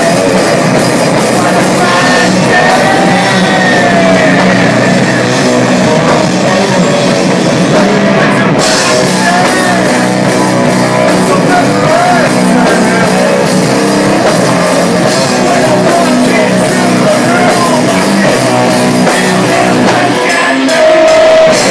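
Live rock band playing loud: drum kit and distorted electric guitar, with a lead singer's wavering voice over the top.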